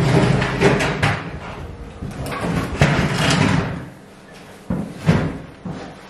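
Wooden stool being set down and shifted on the floor: a string of knocks and thuds with a scraping stretch in the middle.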